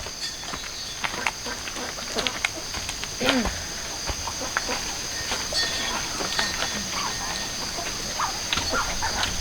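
Farmyard sounds: chickens calling now and then over a steady high-pitched insect drone, with scattered light clicks and rustles.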